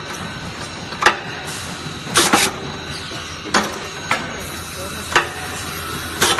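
Metal clicks and clanks from a manual copper tube return bender being worked, roughly one every second, over a steady hiss.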